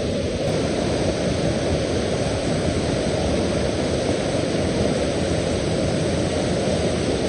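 Steady low roar of a waterfall, an even rush of falling water with no breaks.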